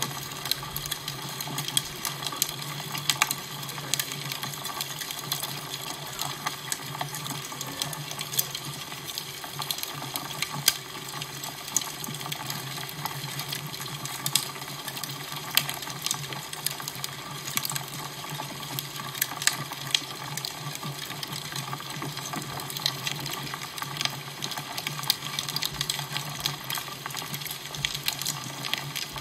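Fire crackling: frequent irregular sharp pops and snaps over a steady rushing hiss and a low hum.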